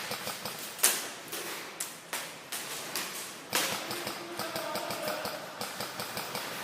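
Airsoft guns firing single shots during close-quarters play: a handful of sharp cracks at irregular intervals, the loudest about a second in.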